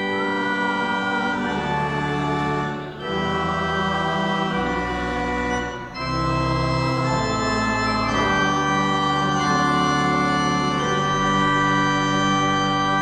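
Church organ playing the closing 'Amen' in slow, held chords, with brief breaks between phrases about three and six seconds in.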